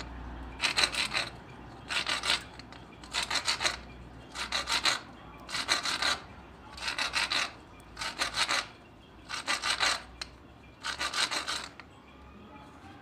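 Plastic pipe end being scraped back and forth against a rough plastered wall to strip the paint off, so the joint won't leak. About nine bursts of quick rasping strokes, one roughly every second and a half, stopping near the end.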